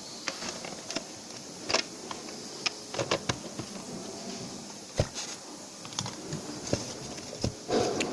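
Irregular light clicks and taps of small hard parts being handled and fitted, a few every second with a sharper knock about five seconds in.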